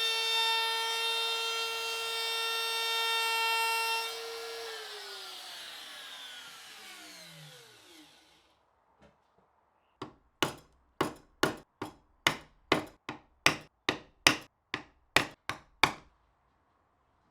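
A power tool's electric motor runs with a steady whine, then is switched off and winds down, its pitch falling for several seconds. About ten seconds in, a hand saw cuts wood in a quick run of strokes, about two and a half a second, stopping near the end.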